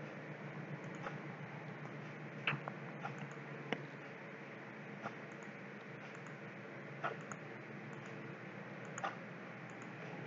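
Computer mouse clicks, about six scattered a second or two apart, over a steady low hum.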